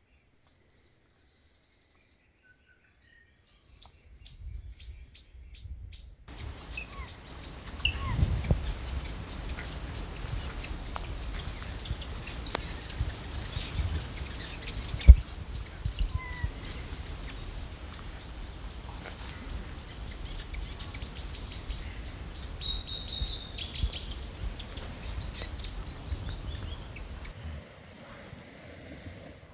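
A songbird singing: quick runs of high clicking notes and bright phrases that slide down in pitch, starting a few seconds in and stopping near the end. Low wind rumble on the microphone runs underneath, with one sharp knock about halfway through.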